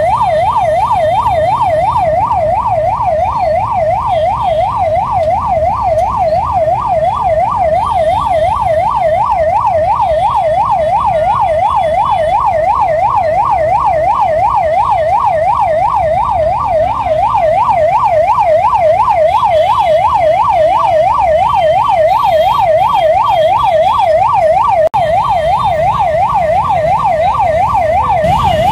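Electronic emergency-vehicle siren wailing in a fast, even up-and-down warble, about three sweeps a second, over the low rumble of jammed traffic.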